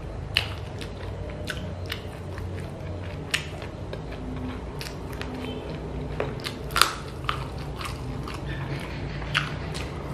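Close-miked chewing and biting of a hand-eaten meal of chili chicken feet and rice, with sharp wet mouth clicks and smacks scattered irregularly through, the loudest about two-thirds of the way in.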